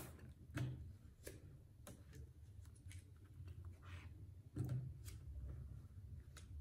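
Plastic sleeve pages of a ring binder being turned by hand: faint crinkling and light clicks, with a soft thud about half a second in and a louder one around four and a half seconds as pages fall flat, over a low steady hum.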